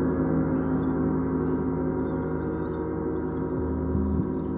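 Several large gongs of a gong sound bath ringing together in a dense wash of many overlapping tones, slowly fading, with a brief low swell about three and a half seconds in.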